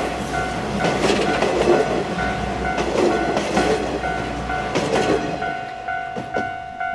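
Steam-hauled 50-series passenger coaches rolling past close by: wheels clacking over the rail joints, dying away as the last car passes near the end.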